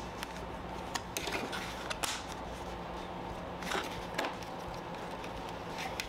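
Orange plastic toy race-track pieces being handled and snapped onto a plastic tower: several sharp plastic clicks and knocks over a steady background hiss and hum.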